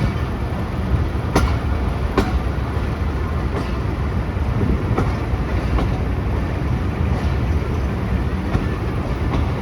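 Pakistan Express passenger train rolling slowly into a station, heard from aboard: a steady low rumble with a few sharp, irregular clacks of the wheels over rail joints and points.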